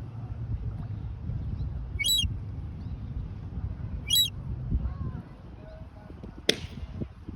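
Gull chick giving two short, high-pitched chirps about two seconds apart, over a low rumble. A sharp click comes near the end.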